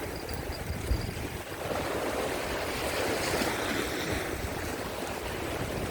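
Rough sea surf washing against the rocks, rising and falling in a steady wash, with wind buffeting the microphone.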